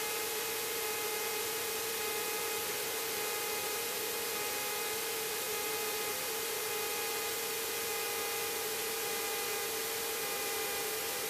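Steady hiss and hum with a few faint, steady whine tones: the cockpit intercom audio feed of a Cessna light aircraft in flight, its engine only faintly heard through the headset microphones.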